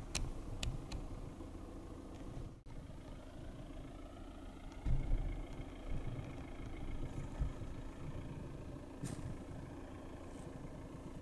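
A car engine idling with a low, steady rumble, with a few light clicks in the first second and another about nine seconds in.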